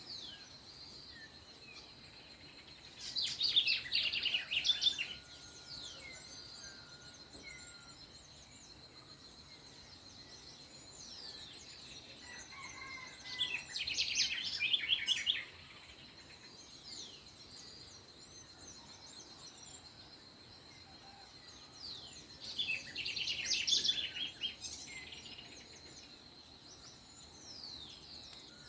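Dawn birdsong: one bird sings a loud phrase of rapid high notes, about two seconds long, three times roughly ten seconds apart, while other birds chirp faintly in between.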